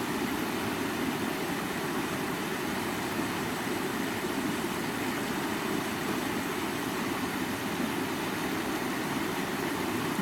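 Stream water running steadily over rocks, an unbroken rushing with the most energy low in the sound.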